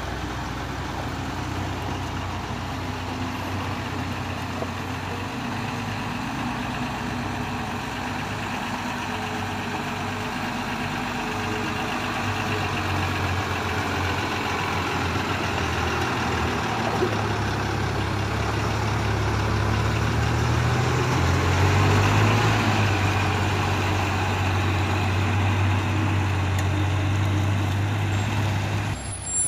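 Diesel engine of a pneumatic-tyred road roller running steadily at close range. Its note rises a little and grows louder about two-thirds of the way through.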